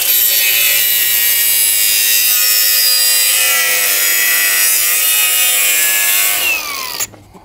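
Angle grinder cutting into the metal housing of a car air-suspension strut: a loud, steady, high-pitched grinding. Near the end the grinder is let off and its whine falls as the disc spins down.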